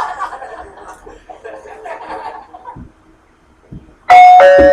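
Canned audience laughter fading out, then a loud two-tone "ding-dong" doorbell sound effect about four seconds in, its two notes ringing on for about a second.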